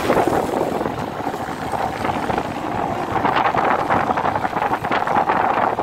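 Wind rushing over the microphone on a moving motorcycle, a steady buffeting that flutters more in the second half, with the motorcycle's engine running underneath.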